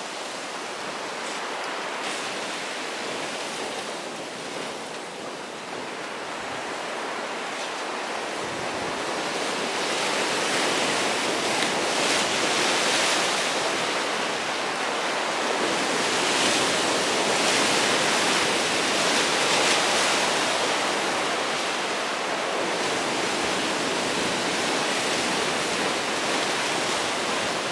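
Ocean surf washing over a rock ledge: a steady rushing of water that swells louder and eases off in slow surges.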